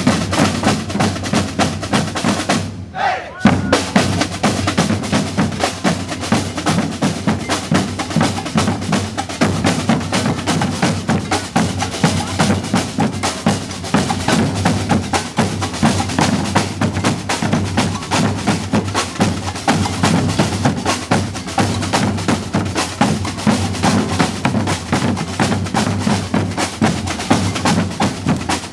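Percussion band drumming together: deep bass drums under snare rolls and sharp wood-block clicks in a fast, driving rhythm, with a short break about three seconds in before the full group comes back in.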